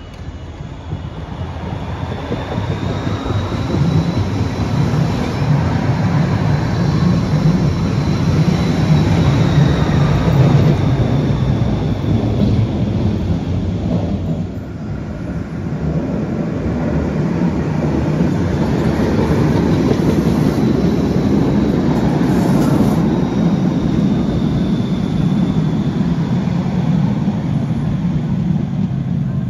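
Siemens Combino (Rheinbahn NF8U) low-floor Stadtbahn trams running by on the tunnel ramp: a steady loud rumble of wheels and traction drive with a thin high whine over it. It dips briefly about halfway, then builds again as a tram comes up out of the tunnel.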